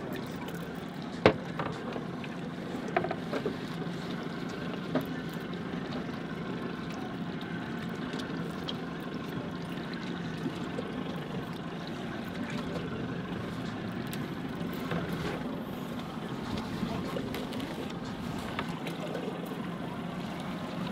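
Steady low hum of a boat engine idling under wind and water noise, with scattered light clicks and taps as fishing gear is handled, the sharpest click about a second in.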